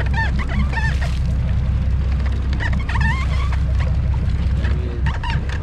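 Charter boat's engine rumbling steadily, with seabirds calling over it in short wavering cries, once in the first second and again around three seconds in.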